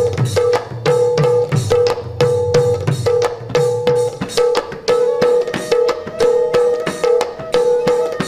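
Music accompanying a Sattriya-style dance. A two-headed drum, the khol, plays a fast rhythm with pitch-bending bass strokes, under sharp cymbal-like strokes and a held tone that repeats about twice a second.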